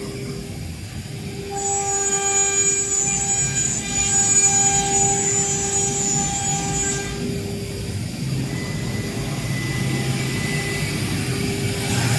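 Double-spindle CNC router running, its two electric spindles cutting a wood board: a steady high whine over a low rumble. A brighter whine with high overtones comes in about a second and a half in and drops away about halfway through.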